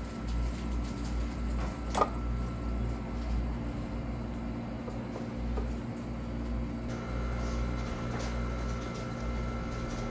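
Steady low mechanical hum of a room appliance, with a single sharp click about two seconds in.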